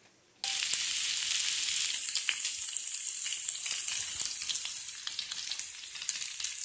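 Mushrooms and bacon sizzling and crackling in a stainless steel skillet as the added mushroom soaking liquid cooks down. It starts abruptly about half a second in and eases slightly toward the end.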